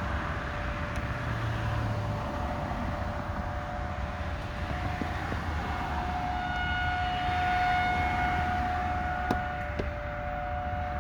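Outdoor civil defense tornado siren sounding a steady two-note tone that swells louder past the middle and eases off near the end. It is a tornado warning signal, which the listener hopes is only a test.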